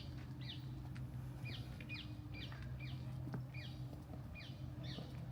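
A bird calling over and over, a series of short downward-sweeping chirps about two a second, over a steady low hum.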